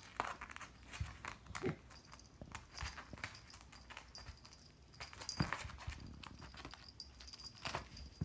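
A kitten playing with a cat teaser: irregular light taps, thumps and scuffs of its paws scrambling and pouncing on the floor.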